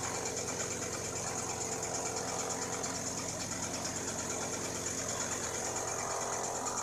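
Vardhman thresher running steadily, its fan blowing chopped straw and dust out through the spout: a continuous high hiss over a busy mechanical rattle.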